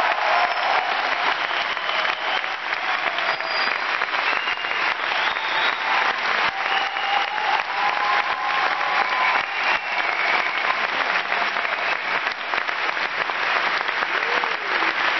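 Large concert audience applauding steadily after a song, with a few cheers over the clapping.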